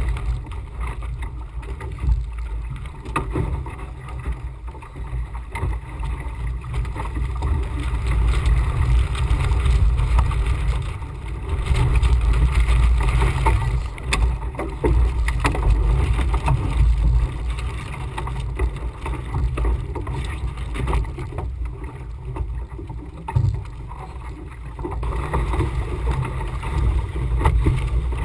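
Wind rumbling over the microphone on the foredeck of a Laser 2000 sailing dinghy in a strong, gusty breeze, with water rushing and splashing along the hull. The loudness swells and drops with the gusts.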